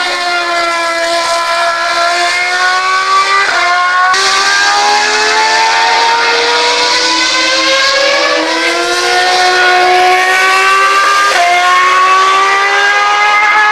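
Formula 1 car's engine running at high revs, a high-pitched note that climbs steadily and drops back at each upshift, several times over.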